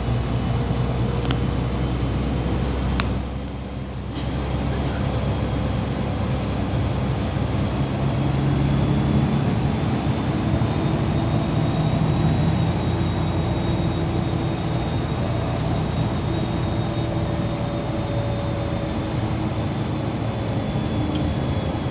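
Inside a MAZ 203.065 city bus under way: the diesel engine runs with a steady low hum over road noise. Around three seconds in the sound drops briefly, and from about eight seconds in it grows louder for a few seconds as the bus pulls harder. A faint high whine runs along with it.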